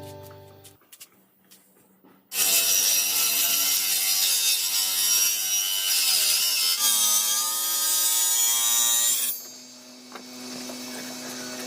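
A power saw cutting wood starts about two seconds in after a few light clicks. Its motor pitch dips under load partway through the cut, and near the end it drops to a quieter steady hum.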